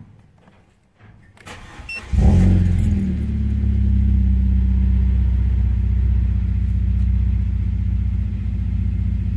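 Nissan N16 Pulsar's 1.8-litre four-cylinder engine started with the key: it catches about two seconds in with a brief flare of revs, then settles into a steady idle around 1,000 rpm, heard from inside the cabin.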